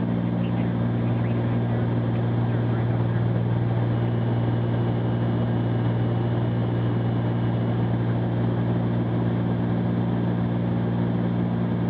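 Cessna 310Q's twin piston engines and propellers droning steadily in the cabin in level cruise flight.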